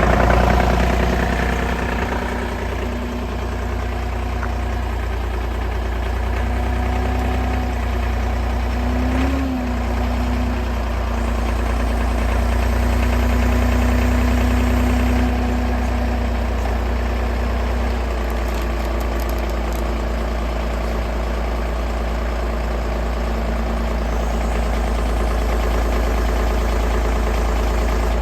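Engine idling steadily with a deep, constant hum. A single brief knock comes about nine and a half seconds in.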